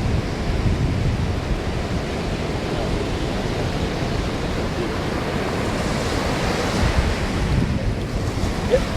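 Atlantic surf washing steadily onto a sandy beach, with wind buffeting the microphone.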